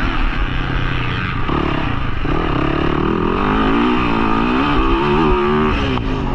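Dirt bike engine running continuously, its pitch rising and falling with the throttle.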